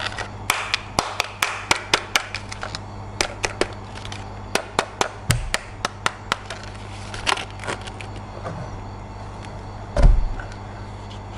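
Hard plastic toy parts clicking and tapping as they are handled, in irregular runs of sharp clicks, with one duller, heavier knock about ten seconds in. A low steady hum lies under it.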